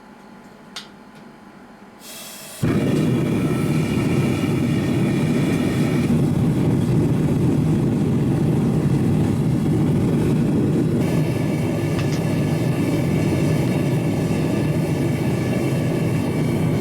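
Small forge being lit: a single click, a short hiss about two seconds in, then the burner catches and runs with a loud, steady rushing noise.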